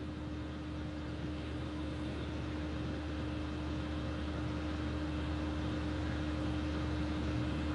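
Steady room tone: a constant electrical-sounding hum under an even hiss, with no other events.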